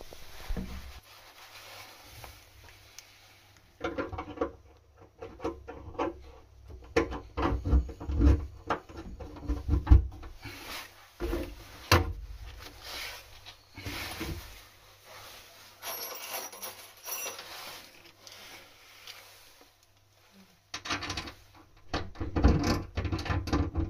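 Irregular knocks, clicks and rubbing of parts being handled, with a quiet spell of a few seconds near the end before the knocking resumes.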